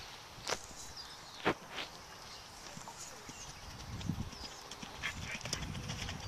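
Horse cantering on an arena's sand footing, its muffled hoofbeats growing louder from about four seconds in as it comes closer. A few sharp clicks sound in the first two seconds.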